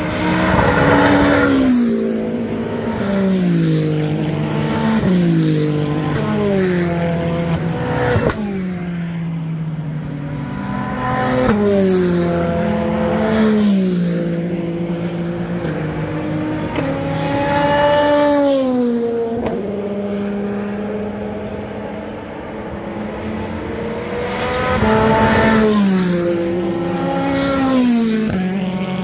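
A succession of endurance race cars passing, their engines loud and changing pitch in steps: each note slides down, then jumps back up, over and over, the pattern of cars braking and changing down through the gears.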